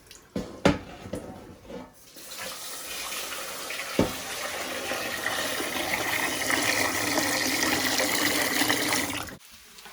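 A few knocks, then a kitchen tap running into a sink for about seven seconds before it cuts off suddenly.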